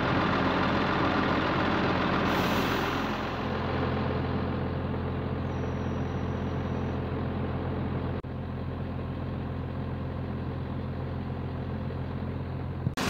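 Crane truck's diesel engine running steadily while it drives the hydraulic loader crane, with a short hiss of air about two and a half seconds in.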